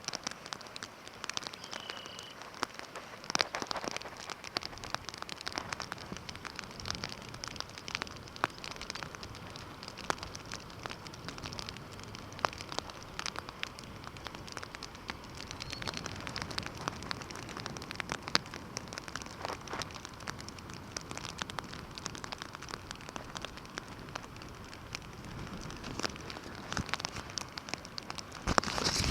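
Steady rain falling, with a dense, irregular patter of raindrops striking close by over a soft hiss.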